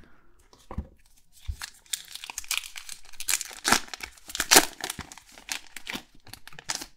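A 2022 Topps Heritage baseball card pack's wrapper being torn open and crinkled by hand: a couple of soft knocks as the pack is picked up, then a stretch of crackling and tearing from about a second and a half in until near the end.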